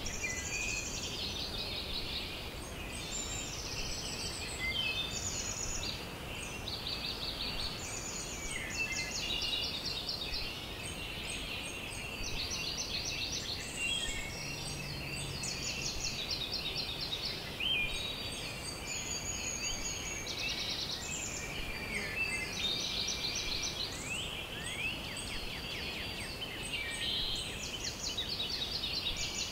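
A dense outdoor chorus of many high-pitched rapid trills from calling animals, overlapping one another without a break.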